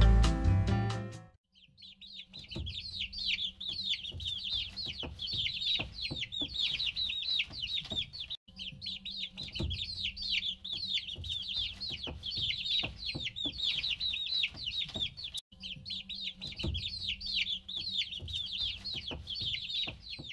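A tune fades out in the first second or so, then many baby chicks peep: a dense, unbroken run of high, short, downward-sliding cheeps with faint low taps beneath. The peeping cuts out briefly twice.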